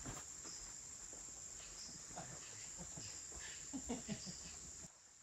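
Insects in the woods keep up a steady high-pitched drone, over footsteps on the trail. Near the end the drone cuts off abruptly.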